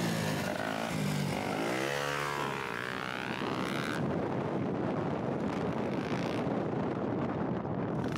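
Dirt bike engine revving through a wheelie, its pitch sweeping down and back up over the first few seconds. About four seconds in the sound changes abruptly to a steadier, noisier engine drone.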